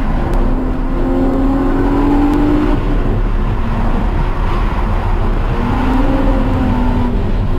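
A car's engine under hard driving on a race track, heard onboard over a steady low rumble of wind and road noise. The engine note climbs through the first few seconds, drops, and climbs again near the end.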